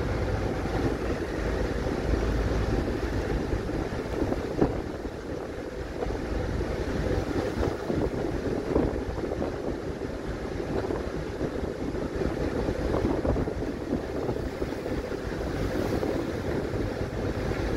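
Steady rushing noise of wind buffeting the microphone over the wash of choppy river water around a moving ferry, with a deep rumble underneath.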